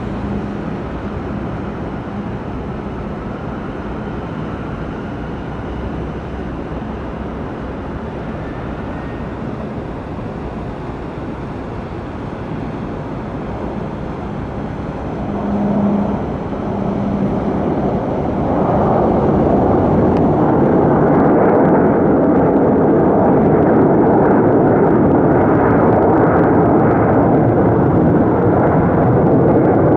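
Jet aircraft engine noise at an airport, steady at first, then growing much louder about two-thirds of the way in and holding at that level.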